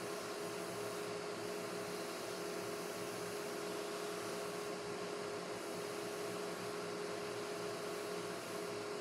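Small benchtop vertical sander running steadily with a constant motor whine, as a plywood piece is pressed and sanded against it.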